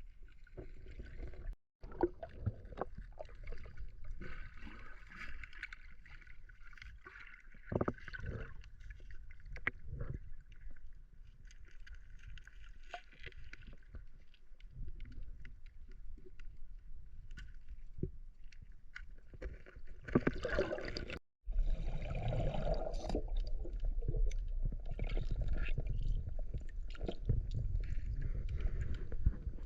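Water splashing and sloshing, with irregular small splashes and knocks, as someone moves and works in shallow water. The sound cuts out briefly twice, near 2 s and about 21 s in, and is louder and fuller after the second break.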